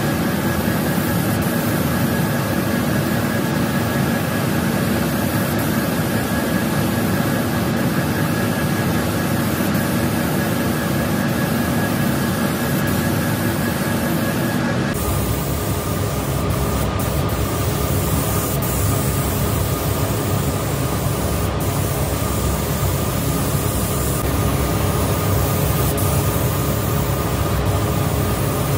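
Paint booth ventilation fan running with a steady rushing noise and hum, under the hiss of a compressed-air spray gun laying down primer. About halfway through the hum changes abruptly.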